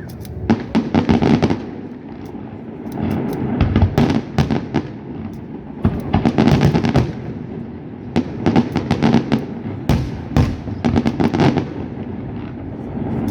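Aerial fireworks going off in rapid volleys of sharp bangs and crackles, a new cluster every two to three seconds over a steady low rumble.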